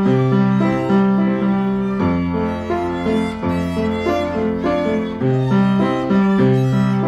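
Instrumental performance of a Korean children's song: a melody over a steady, repeating bass pattern.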